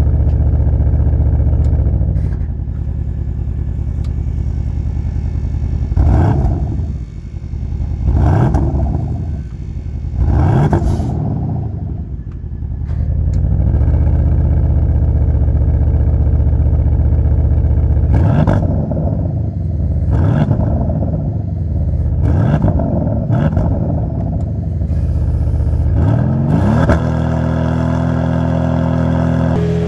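Porsche Panamera GTS 4.0-litre twin-turbo V8 exhaust at a steady idle in Dynamic mode, revved in sharp blips that rise and fall back to idle: three about six to eleven seconds in, then another series later, ending in a longer climb near the end.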